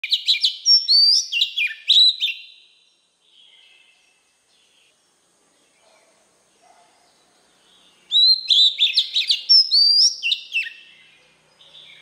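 An oriental magpie-robin singing two bursts of rich, rapid whistled phrases, full of quick upward and downward slurs, with a pause of about five seconds between them.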